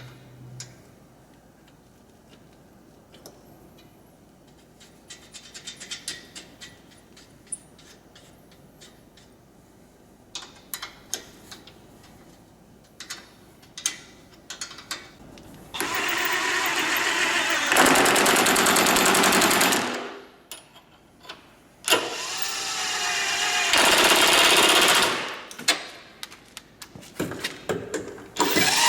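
Scattered clicks and clinks of hand tools on metal, then two loud bursts of a power tool running for a few seconds each, with a rapid pulsing.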